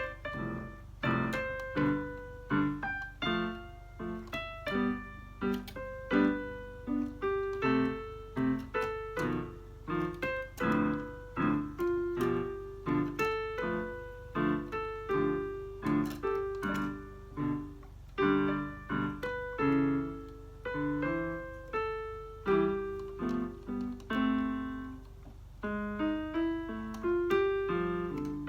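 Electronic keyboard on a piano voice, played freely in beginner's practice: a steady run of single notes and chords, struck about once or twice a second and each fading away.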